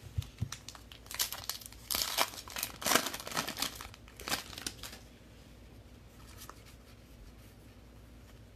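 Foil trading-card pack wrapper being torn open and crinkled, a rapid run of crackling and tearing for the first few seconds, then only faint handling.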